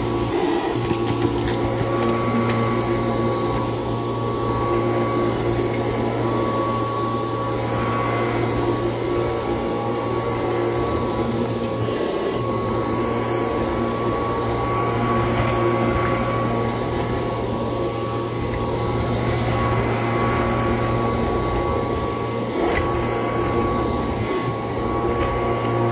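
1986 Kirby Heritage II upright vacuum cleaner running steadily, a constant high whine over a low hum, with the gritty motor noise that collectors call 'crunch'.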